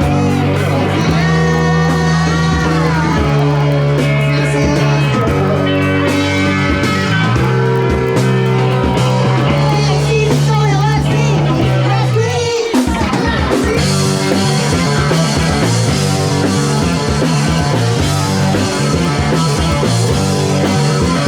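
Rock music with a singing voice, guitar and sustained bass notes.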